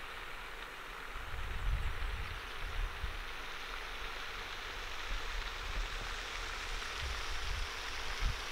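Steady splashing hiss of a pond aerating fountain spraying water, with irregular low rumbles of wind on the microphone.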